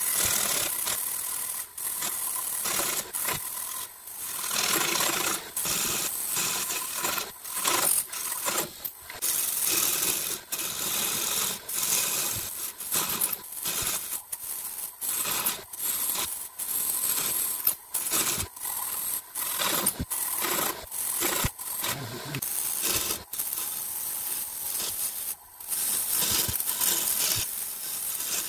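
Turning tool cutting a spinning glued-up wood blank on a wood lathe: a hissing, scraping cut that keeps breaking off and starting again every second or so as the tool comes on and off the wood.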